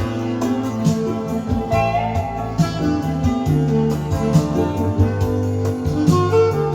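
Instrumental passage of a country song: guitar over a bass line and a steady beat.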